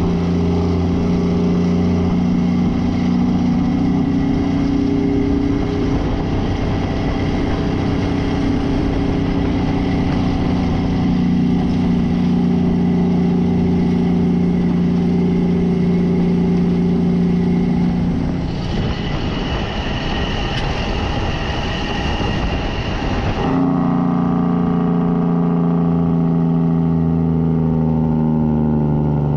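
Mack semi truck's diesel engine and exhaust running steadily as the truck drives. About two-thirds of the way through, the steady engine note gives way to a rougher noise for about five seconds, then comes back and slowly drops in pitch.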